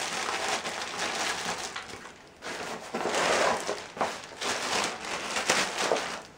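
Plastic wrapping crinkling and a fabric carrying bag rustling as a tripod is pulled out of the bag, with a short lull about two seconds in and a few sharp crackles later.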